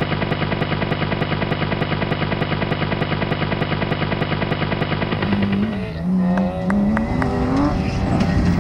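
A steady, rapidly pulsing hum at first; then, from about five seconds in, the BMW 325 rally car's engine revving up and dropping back repeatedly as the driver works through the gears on gravel.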